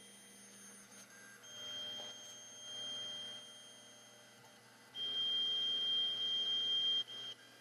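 Ender 3 3D printer's stepper motors whining in a steady high tone as the print head moves. The tone shifts between moves, is louder for about two seconds near the end, then stops.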